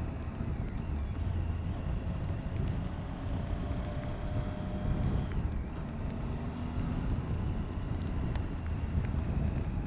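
Motorcycle engine running steadily under way, with wind noise over the helmet-mounted microphone. The engine's higher whine dips briefly about five and a half seconds in, then steadies again.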